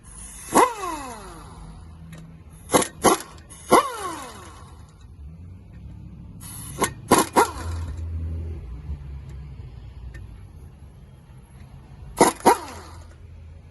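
Sharp hammer blows on steel truck-axle parts, about eight strikes in ones and pairs, each ringing and falling in pitch, over a low steady hum.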